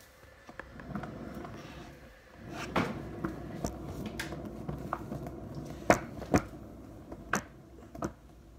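Faint rustling and handling noises in a small room, with several sharp clicks and knocks scattered through.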